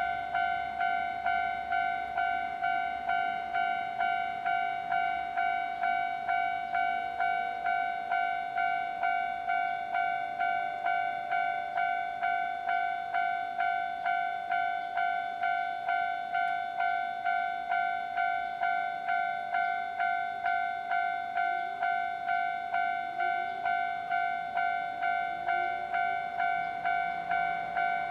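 Japanese railway level-crossing alarm bell ringing: an electronic ding repeating steadily about one and a half times a second, warning that a train is coming.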